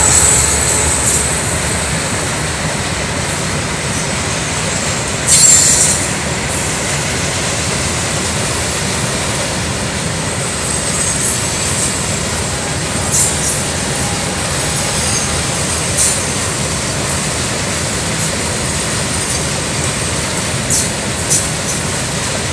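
Freight train wagons rolling past at close range: a steady rumble and rattle of wheels on the rails. Brief high-pitched wheel squeals break through several times, the loudest about five seconds in.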